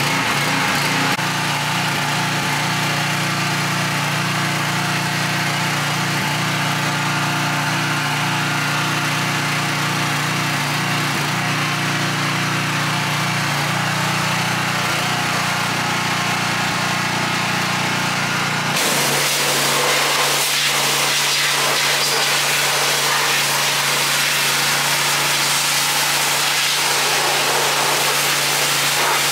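Gas-engine pressure washer running steadily, with the hiss of its high-pressure spray jet blasting grease and rust off a steel frame. About two-thirds of the way through, the engine note drops a little and the spray hiss gets brighter.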